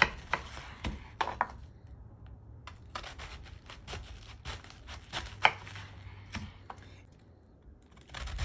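A kitchen knife slicing through a raw head of green cabbage on a bamboo cutting board: crisp crunching cuts and the blade knocking the board, many strokes at irregular spacing.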